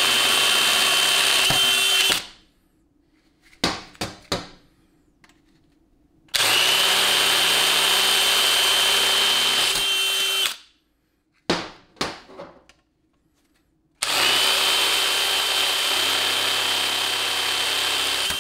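Cordless brushless drill boring out worn check-ball holes in a transmission separator plate with a quarter-inch bit, enlarging them to take repair sleeves. It runs in three steady bursts of about four seconds each, with a constant whine, and there are a few short clicks and knocks in the pauses between holes.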